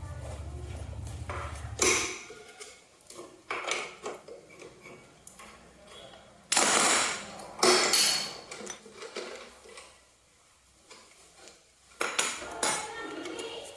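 Metal tools and parts clinking and clattering in workshop handling, with a longer scraping noise near the middle. A low steady hum stops about two seconds in.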